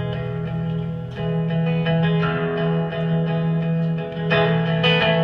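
Live band playing an instrumental passage between verses, with guitar holding chords that change about a second in and again near the end.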